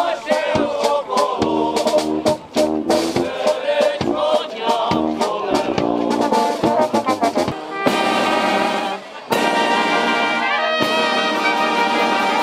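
Brass band playing a lively folk dance tune with a sharp, steady beat; about two-thirds of the way through the music changes to long held brass notes.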